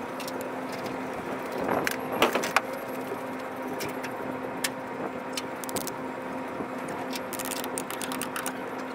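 A steady machine hum with a constant tone, over a rushing background, with scattered light metallic clicks and clinks, a cluster of louder ones about two seconds in.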